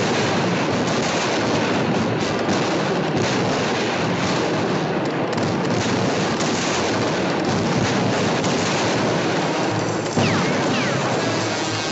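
Cartoon sound effects of a loud, continuous clatter of gunfire and brawling with no breaks. About ten seconds in it jumps in level, with two quick falling whistles.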